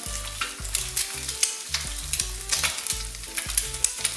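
Eggs frying in oil in a nonstick frying pan: a steady sizzle with frequent sharp crackling pops.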